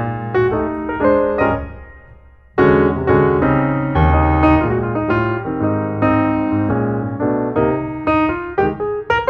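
Background piano music. The notes die away about two seconds in, then a fuller passage with deeper bass notes starts.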